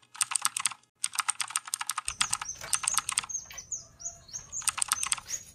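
Rapid computer-keyboard typing clicks in several quick runs, broken by short pauses, with a few bird chirps about four seconds in.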